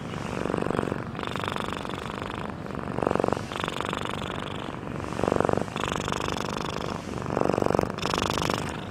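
Domestic cat purring, a steady pulsing rumble that swings with each breath: a louder, lower phase about every two seconds, four times, alternating with a softer, higher phase.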